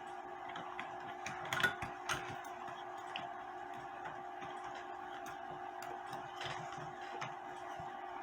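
Light clicks and knocks from a cuckoo clock movement being handled on a wooden stand, loudest twice about two seconds in, over a steady hum.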